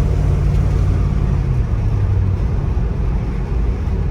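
The big-block 454 V8 of a 1970 Chevrolet Monte Carlo SS running as the car is driven on a road test. It is a steady low rumble whose note eases down a little over the first couple of seconds.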